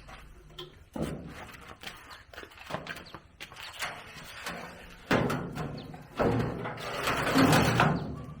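Repeated knocks and clatter, like tools and metal parts being handled, with a sudden louder knock about five seconds in and a longer, louder burst of noise near the end.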